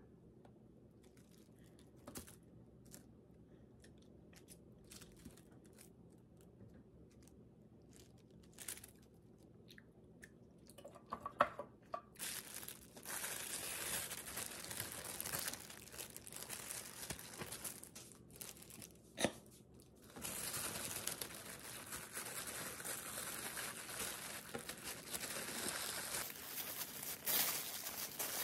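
Plastic wrap and disposable plastic gloves crinkling and rustling as hands fold the wrap tightly around a stacked sandwich. There are a few light taps at first, then steady crinkling from almost halfway through, with one short pause.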